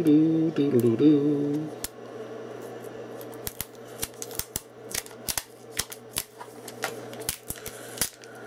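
Fingernail picking and peeling an anti-theft sticker off a Blu-ray slipcover: a long, irregular run of sharp little clicks and crackles. For the first couple of seconds a man hums a few held notes over it.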